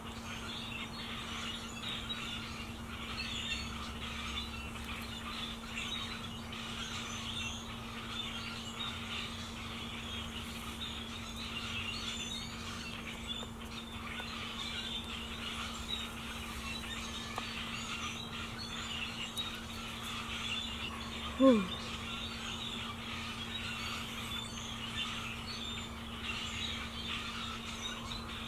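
Small birds chirping continuously over a steady low hum, with one short, louder falling squeak about three-quarters of the way through.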